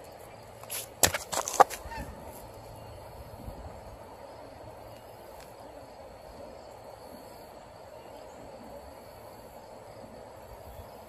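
A short cluster of knocks and rustles close to the microphone between one and two seconds in, from hands handling the fishing gear and worm. After that there is only a faint, steady outdoor background.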